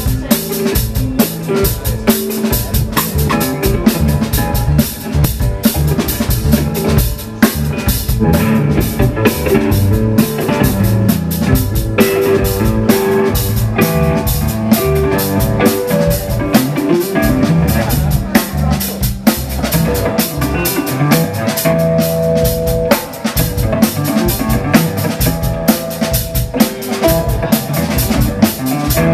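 Live jazz-funk band playing: drum kit keeping a steady beat under guitar and keyboards.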